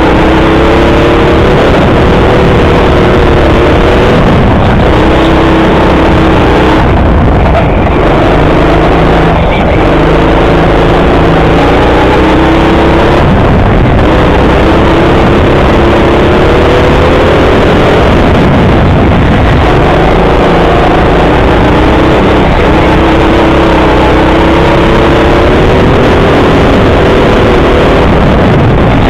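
Go-kart motor running hard, loud, its pitch climbing and then dropping several times as the kart speeds up along the straights and slows for the corners.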